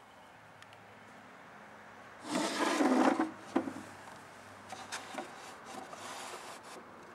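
Wooden drawer of an antique Tasmanian oak table being pulled open, wood rubbing on wood. There is a loud scrape about two seconds in, then a knock, then softer sliding and small clicks.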